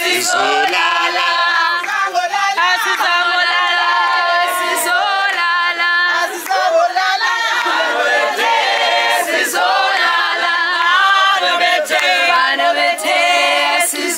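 A group of voices singing together without instruments, several parts in harmony.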